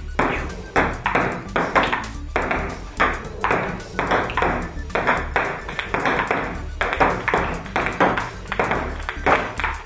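Table tennis rally: a plastic ball clicking sharply again and again as it bounces on the table and is struck back by the robot arm's paddle, about two hits a second in a steady rhythm.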